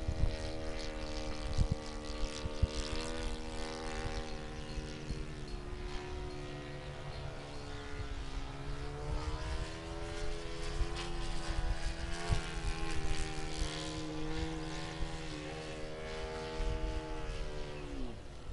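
Radio-controlled aerobatic model airplane flying, its engine and propeller making a steady drone whose pitch slowly rises and falls. The pitch drops sharply near the end.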